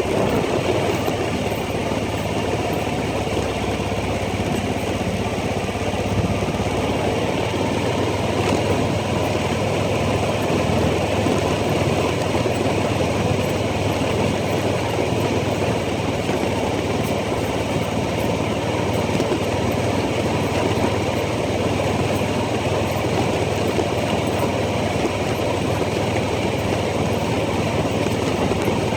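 ATV engine running steadily, with no big revs or changes in pitch.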